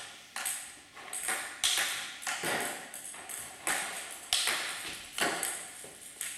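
Table tennis balls clicking off bats and tables in ongoing rallies, about two sharp hits a second, each hit echoing in a large hall.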